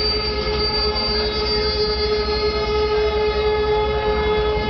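Sound-art drone from the concert-installation: many steady held tones, the strongest a mid-pitched hum, over a dense low rumble, at an even level throughout.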